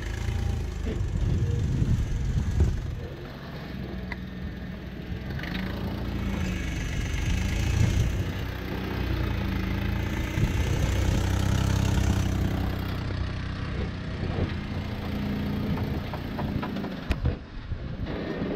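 Jeep Wrangler's engine running at low revs while crawling over rock, the revs rising and falling with the throttle. A couple of sharp knocks come near the end.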